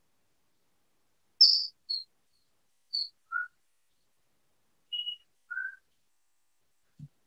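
Birds chirping: about six short, separate whistled notes with dead silence between them, the first and loudest the highest, later ones lower. A faint low thud near the end.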